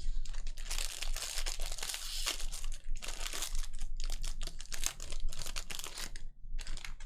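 Wrapper of a baseball card pack crinkling and tearing as it is ripped open and handled, a dense crackle with a short pause near the end.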